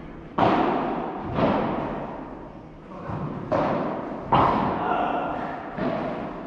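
Padel rally: the ball struck by rackets and bouncing off the court and glass walls, five sharp hits at uneven gaps. Each hit rings on in the long echo of a large hall.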